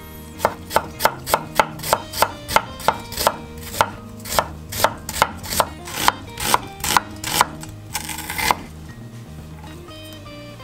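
Chef's knife slicing an onion thinly on a bamboo cutting board: about twenty sharp knocks of the blade on the board, roughly three a second, followed by a short scraping sound about a second after the last one.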